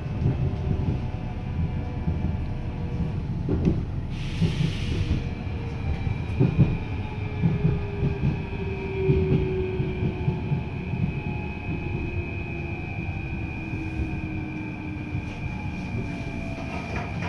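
Athens Metro train heard from inside the carriage: a steady low rumble with uneven knocks from the running gear, and the motor's whine slowly falling in pitch as the train slows alongside a station platform. A brief hiss comes about four seconds in.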